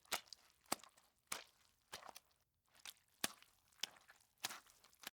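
Footsteps sound effect playing back: faint, evenly spaced steps about one every 0.6 s, cutting off abruptly near the end.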